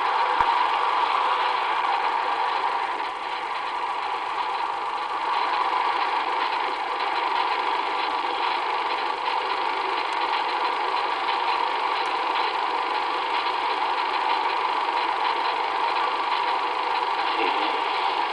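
Steady mechanical hum and hiss from the recording machine, unchanging throughout.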